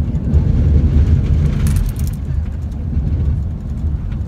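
Steady low rumble of a moving vehicle heard from inside the cabin: engine and tyre noise while driving, with a brief high hiss just under two seconds in.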